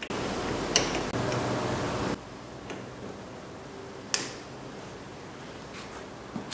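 Handling and rustling noise for about two seconds that stops abruptly, then a few sharp clicks, the loudest about four seconds in: the fog light's plastic wiring harness connector being pushed together and snapping home.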